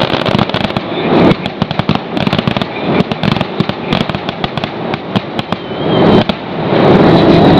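Fireworks going off: a dense, rapid series of pops and crackles, with a louder steady noise building near the end.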